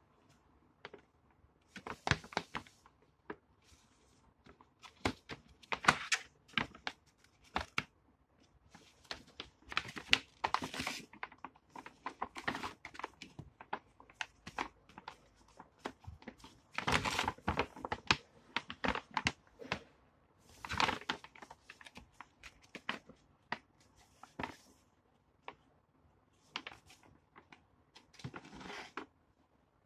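Plastic-film stand-up zipper pouches being handled and opened by hand. Irregular bursts of crinkling and sharp crackling clicks come and go, with brief pauses between.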